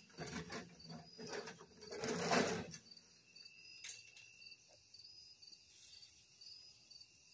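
A shovel scraping and scooping through wet concrete in a wheelbarrow, a rough grating for the first few seconds, loudest just before it stops. After that, crickets chirping.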